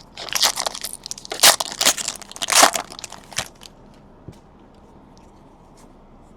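A trading-card pack wrapper being torn open and crinkled in loud bursts for about three seconds, followed by a few faint ticks as the cards are handled.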